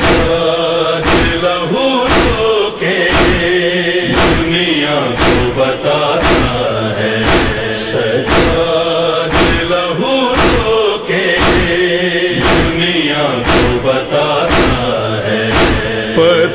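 Noha interlude: voices chanting in chorus over a steady beat of matam, rhythmic chest-beating keeping time.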